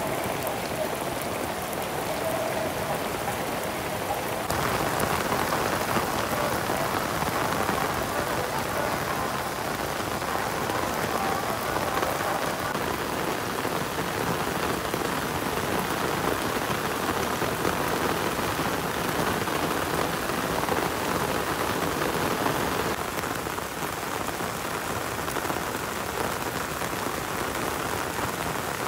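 Heavy rain falling steadily, splashing on wet paved ground and puddles.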